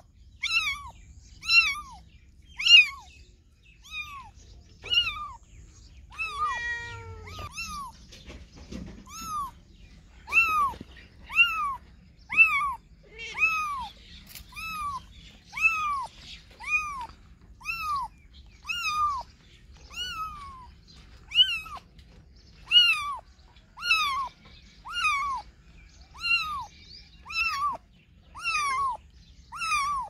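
A young kitten meowing over and over: short, high-pitched mews about one a second, each rising then falling in pitch. About seven seconds in comes one longer, lower, wavering call.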